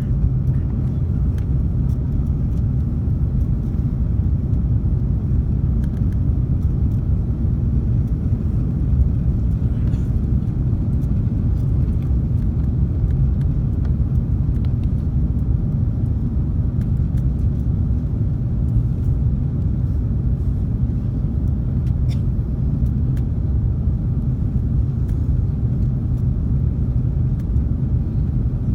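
Steady low rumble of engine and airflow noise inside the cabin of an Airbus A330-300 airliner, even throughout.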